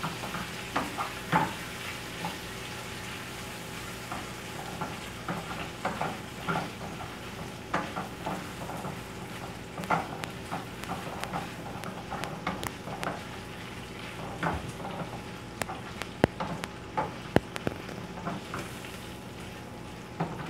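Chopped bacon sizzling as it fries in a frying pan over a gas flame. A utensil scrapes and taps the pan as it is stirred, with many sharp clicks scattered through the frying hiss.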